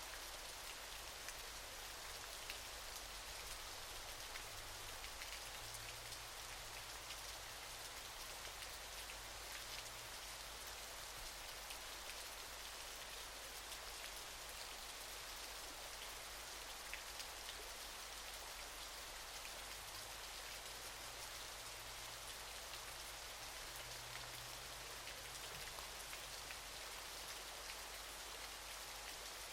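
Steady hiss and patter of falling water, sprinkled with faint drop-like ticks over a low, even rumble.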